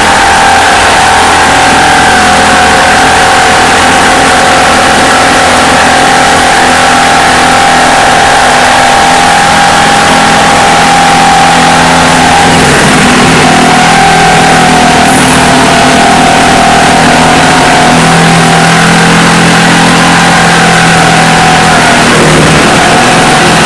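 Corded electric jigsaw running continuously as it saws through a laminate countertop, the motor whine steady and loud with the blade rasping through the board, its pitch shifting slightly a few times as the load changes.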